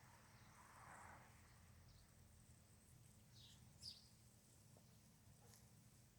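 Near silence with a few faint, short bird chirps about halfway through, over a low steady hum.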